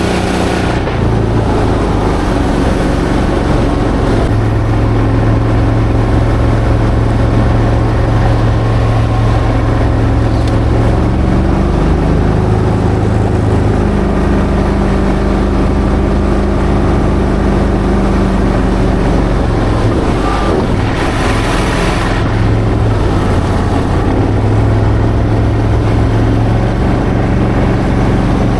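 A vehicle engine running steadily, its pitch shifting a few times, with brief rushing surges near the start and about two-thirds of the way through.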